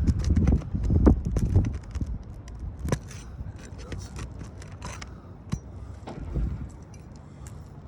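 Footsteps and scraping on an asphalt shingle roof: heavy thumps over the first two seconds, then scattered sharp clicks and light scrapes.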